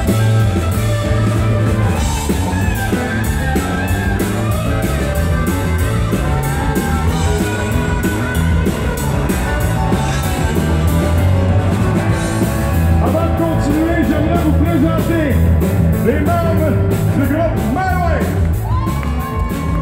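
Live rock band playing loud: electric guitar over bass and drums, with a singer's voice coming in about two-thirds of the way through.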